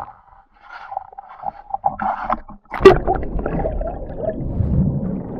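A sharp knock about three seconds in, then the muffled, low rush and gurgle of water heard through an underwater camera housing as it films a sevengill shark swimming past.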